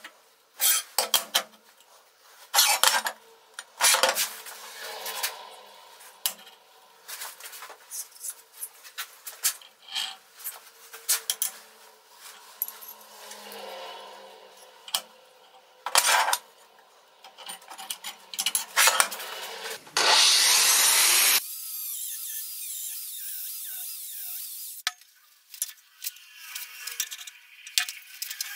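Steel plates and parts handled on a steel workbench: repeated clanks and knocks as pieces are set down, with metal sliding and scraping against metal. About two-thirds of the way through comes a louder noisy stretch of about a second and a half.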